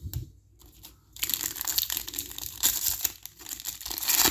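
Foil wrapper of a trading-card pack crinkling and tearing as it is ripped open by hand. The crackle starts about a second in.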